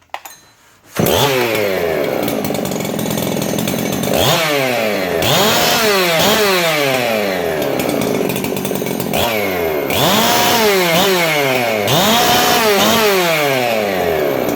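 Husqvarna 372 XP X-Torque chainsaw, a dual-ported, roughly 75 cc two-stroke built with a 372XPW cylinder and piston, fires up about a second in and runs loud. It is revved again and again, its pitch climbing sharply and sliding back down between blips of the throttle.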